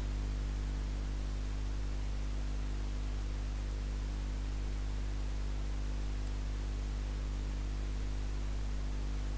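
Steady electrical mains hum, a low buzz with a ladder of overtones, over an even hiss of microphone noise.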